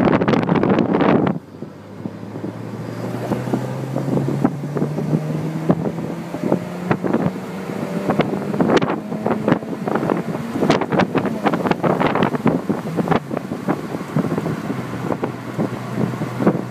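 Wind buffeting the microphone in an open-top 2008 BMW 335i at road speed, loudest for about the first second, then dropping suddenly. Under the gusts, the car's twin-turbo straight-six drones with a note that climbs slowly for several seconds as the car gathers speed.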